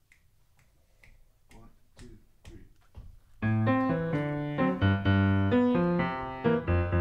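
Faint clicks about twice a second, growing louder, then about three and a half seconds in a jazz piano comes in loudly with chords over a strong bass line.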